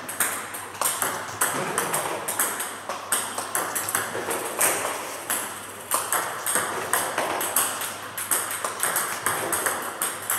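Plastic table tennis balls clicking sharply in quick irregular succession, a few a second: the rubber bat striking each ball and the ball bouncing on the table as backspin tomahawk serves are practised one after another.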